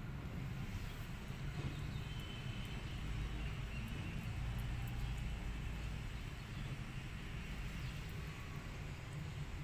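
A steady low rumble with faint outdoor background noise.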